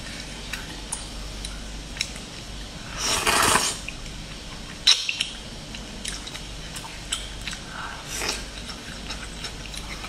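Chopsticks clicking and scraping against a plate while picking up pieces of scallop and noodles in sauce, with a louder spell of eating noise about three seconds in.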